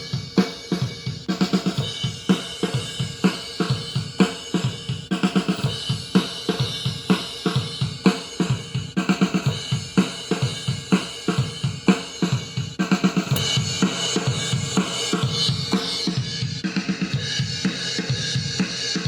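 Recorded drum kit playing a steady groove of kick, snare, hi-hat and cymbal hits, run through a Pye valve compressor at a 5:1 ratio with 100 ms decay. About two-thirds of the way in, cymbals wash more steadily and the loudness evens out.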